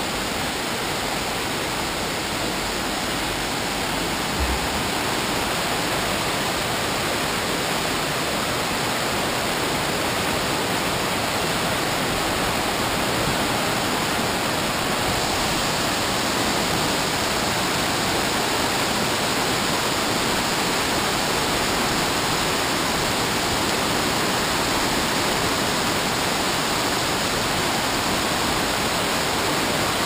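Steady roar of waterfalls and a fast mountain river, an even rushing noise that grows a little louder about halfway through.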